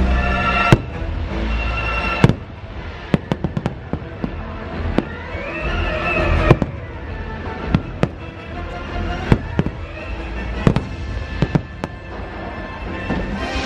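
Fireworks going off in a display, with sharp bangs scattered throughout, some in quick clusters, over the show's soundtrack music.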